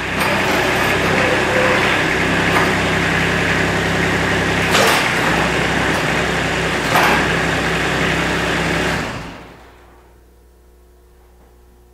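Kubota RTV utility vehicle's diesel engine running steadily with a couple of clunks, then shut off and winding down about nine seconds in.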